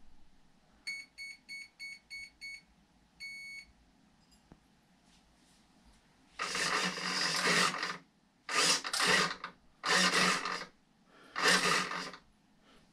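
An RC boat's electronic speed controller beeping at power-up: six short beeps, then one longer beep. About six seconds in come four buzzing bursts of about a second each from the rudder servo being powered to re-center the steering.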